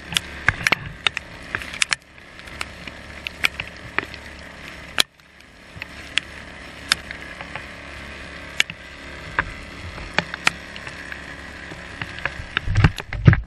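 Small boat running across choppy water in the rain: a steady low motor hum under many sharp slaps and clicks from waves and raindrops hitting the hull and camera. Wind buffets the microphone in heavy gusts near the end.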